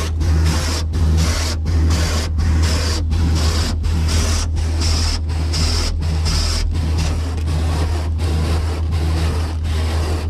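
Rotating cloth brushes of an Autec EV1 friction car wash slapping and rubbing over the car, heard from inside the cabin as a steady run of swishing strokes just under three times a second. Under it runs a steady low hum.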